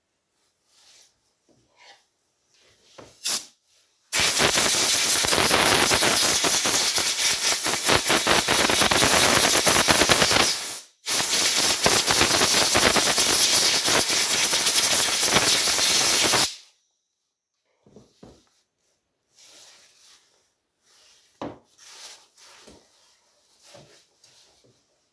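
Long, loud hiss of pressurised spray from a nozzle, in two bursts of about six and five seconds with a brief break between them, while a chainsaw carburettor is being cleaned. A sharp click comes just before it, and light handling clicks follow.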